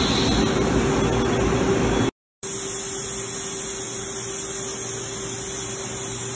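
Enclosed CNC lathe running a slow cut at 600 rpm spindle speed and 0.002 feed: a steady machine hum with a constant tone and a hiss. About two seconds in the sound drops out briefly, then comes back quieter and steadier.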